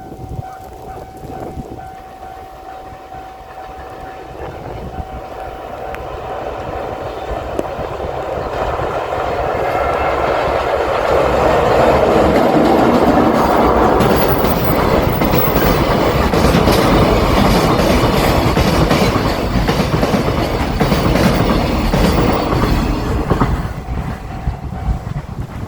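A freight train passing over a level crossing, its wheels clattering over the rail joints. The sound builds to a loud peak in the middle and eases off near the end. The crossing bell's steady ringing is heard at the start and is drowned out as the train arrives.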